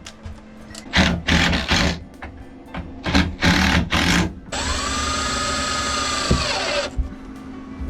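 Power drill driving screws into wood in two short bursts, then a power-tool motor running steadily with a high whine for about two and a half seconds before spinning down.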